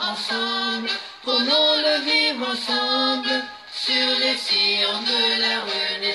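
A woman singing a hymn unaccompanied, in long held notes with two short breaks for breath.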